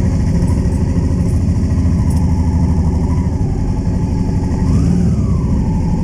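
Honda Transalp motorcycle engine running steadily at low revs, with a faint whine that rises and then falls about halfway through.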